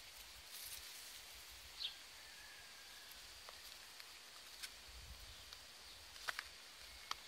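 Quiet outdoor ambience with a faint steady high hiss and a few scattered soft clicks and rustles.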